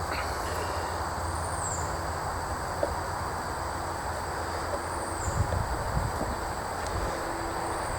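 Steady outdoor background noise with a low hum and a high insect drone, with a faint chirp repeating every few seconds. A few light knocks and clicks come about three seconds in and again around five to six seconds in, as the chainsaw is handled while its carburetor is being taken off.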